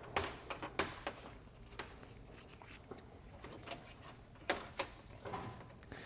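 Faint handling sounds: a few light clicks and rustles as a screwdriver is pushed through a rubber grommet and a wire is handled.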